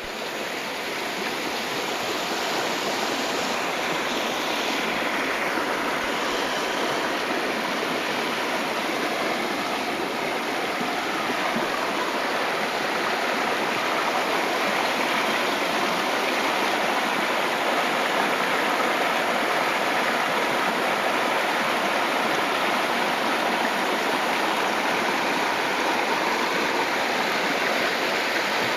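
Creek water running steadily over rocks, a continuous rushing and babbling.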